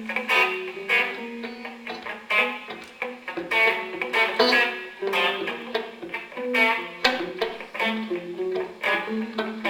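Electric guitar quartet playing: sharp plucked notes ring out irregularly, often about one or two a second, over sustained low notes.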